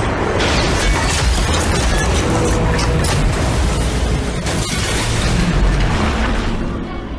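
Film soundtrack: dramatic music under a dense wash of booming, crashing action sound effects with a heavy low rumble, easing off near the end.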